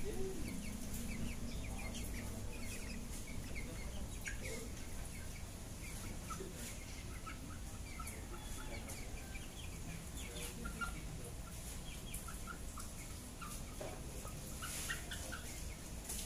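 Chinese Silkie chickens clucking, many short calls scattered throughout, over a low steady background rumble.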